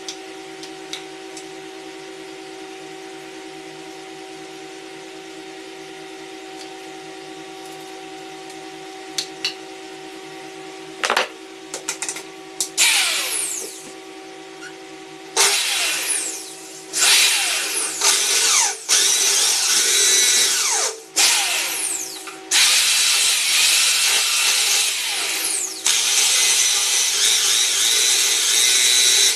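A power drill running in a series of bursts, each a second to a few seconds long, with the motor's pitch sliding up and down as it starts and stops. The bursts begin about eleven seconds in. Before that there is only a steady hum and a few clicks.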